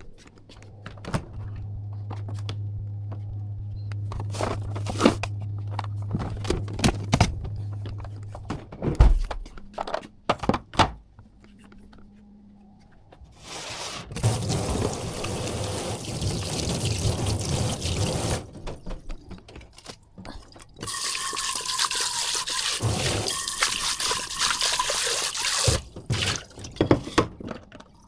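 Kitchen tap water running into a sink in two long spells, with knocks and clatter of dishes and utensils before and between them.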